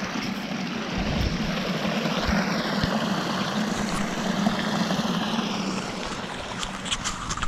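Loud, steady rush of a waterfall running full after days of heavy rain, with a few sharp clicks near the end.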